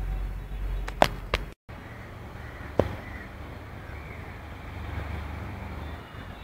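Outdoor ambience with a steady low rumble, broken by two sharp clicks about a second in, a brief cut to total silence just after them, and one more sharp click near three seconds in.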